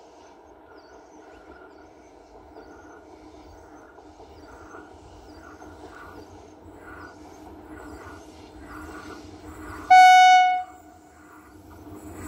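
A WAP-7 electric locomotive and its express train approach, a low rumble slowly growing louder. About ten seconds in the locomotive's horn sounds one short, loud blast of under a second.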